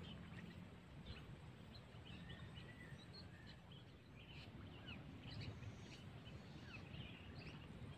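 Faint outdoor ambience: scattered short, faint bird chirps over a low, steady background rumble.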